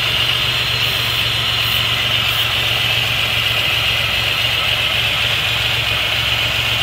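1990 Chevrolet Beretta's 3.1-litre multi-port fuel-injected V6 running at a steady, very rough idle, caused by a vacuum leak at a bad intake manifold gasket.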